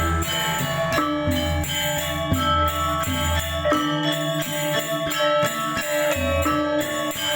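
Balinese gamelan ensemble playing: many bronze metallophones ringing in dense, fast layered notes, jingling cymbal clashes on top, and deep low gong tones swelling and fading about every second.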